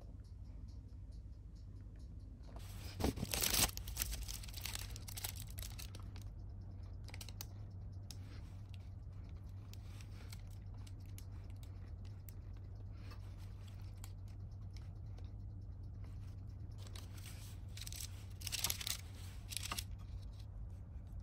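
Plastic piping bag crinkling and rustling as it is handled and squeezed, in two bursts, about three seconds in and again near the end, over a low steady hum.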